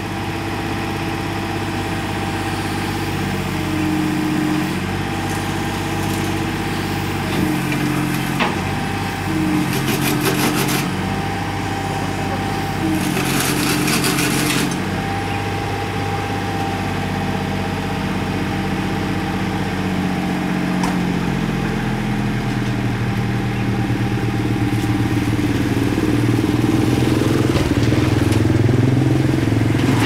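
Komatsu PC50UU mini excavator's diesel engine running under load as it crawls on its tracks onto a truck's trailer. Its pitch steps up and down as the controls are worked, with two harsher bursts about ten and thirteen seconds in, and it runs louder near the end.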